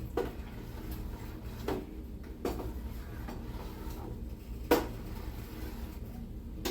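A spoon stirring thick sauce in a cooking pot, knocking against the pot four times, the loudest knock near the end, over a steady low hum.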